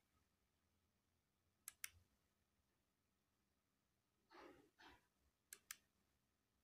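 Two quick pairs of sharp clicks from a laptop's pointer buttons as the media player's controls are worked, with two soft breathy sounds between them, in an otherwise near-silent room.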